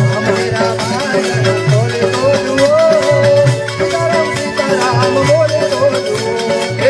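Devotional dhun music in an instrumental passage: a melody that bends and wavers in pitch over a steady repeating drum beat and jingling hand percussion.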